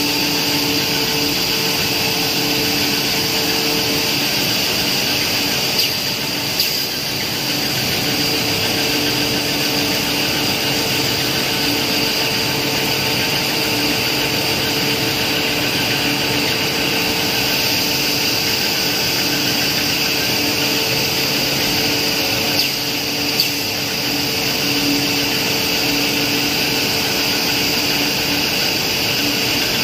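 A 2000 mm cast stretch film production line running: a steady machine hum and hiss with a couple of steady tones. A few short clicks come a little after the start and again past the middle.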